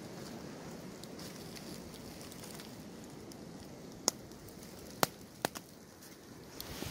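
Footsteps walking slowly through dry fallen leaves on a forest floor, a low steady rustle, with three sharp clicks in quick succession a little past the middle.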